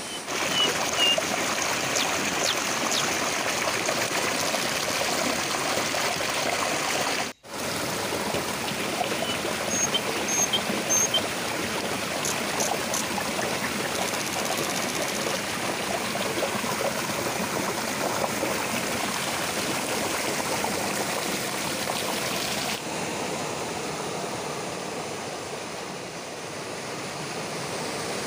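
Rushing water of a small rocky stream cascading over boulders, a steady loud rush that cuts out for a moment about seven seconds in.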